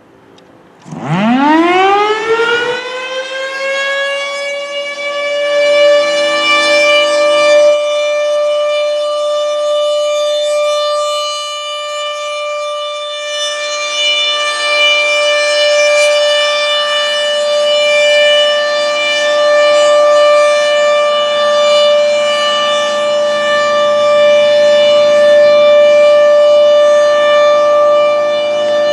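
Federal Signal Thunderbolt 1000 outdoor warning siren starting up about a second in. It winds up quickly in pitch, then holds one steady tone for the alert signal. It is not very loud, which the owner puts down to its top two horn bolts being missing.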